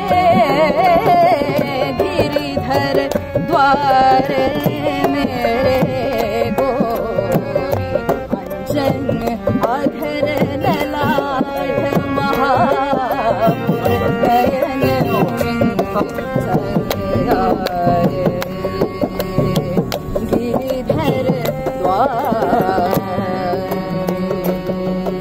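A woman singing a Carnatic-style devotional song with sliding, ornamented melody, over a steady drone and hand-drum accompaniment.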